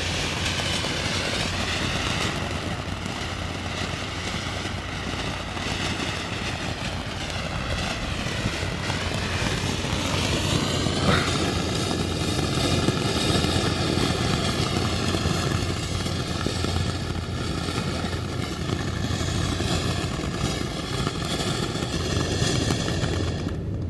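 Ground fountain fireworks spraying sparks: a steady, dense hiss with faint crackle, and a single sharp crack about eleven seconds in.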